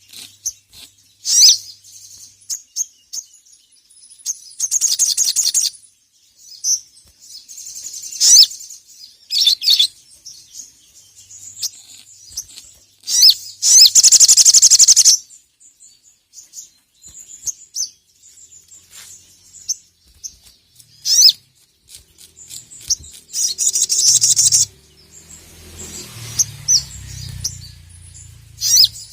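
A sogon (sogok ontong sunbird) singing: sharp, high chirps and quick sweeping notes between pauses, broken by three stretches of rapid trill, the longest and loudest about halfway through.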